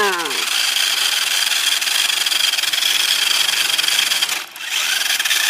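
Plastic toy jeep pushed by hand over rough rock, its wheels rolling and grinding in a steady rasp with a faint high whine, broken off briefly about four and a half seconds in.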